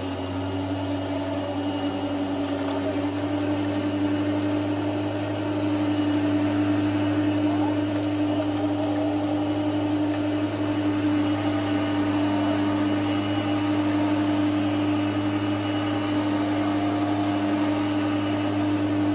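Corded electric rotary lawn mower running, a steady motor whine as it is pushed across the lawn cutting grass.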